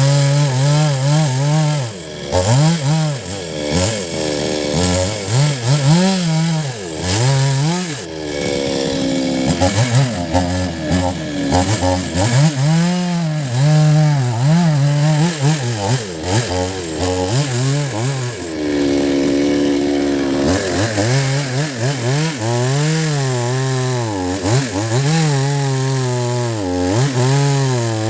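Chainsaw cutting into the thick roots of a rain tree (trembesi) stump, its engine pitch rising and falling again and again as the chain bites and frees up. A little past the middle it holds a steady high pitch for about two seconds.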